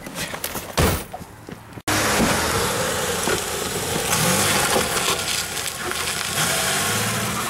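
A car door slams shut about a second in. Then a car's engine runs under a steady loud rushing noise as the car pulls away from the curb.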